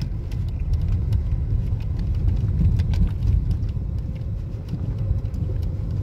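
Steady low rumble of a car driving through snow, engine and tyre noise heard from inside the cabin, with faint scattered clicks.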